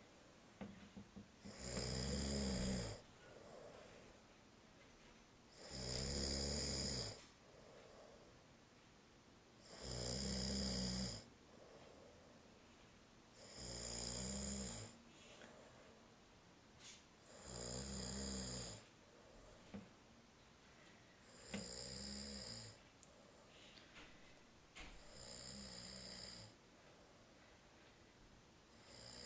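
Snoring: eight loud snores at a slow, even rhythm, one about every four seconds, each lasting about a second and a half, with quiet breathing between them.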